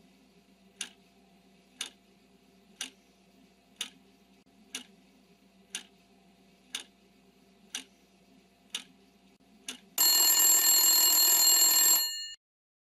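Countdown timer sound effect ticking about once a second, then a loud alarm ringing for about two seconds as the time runs out.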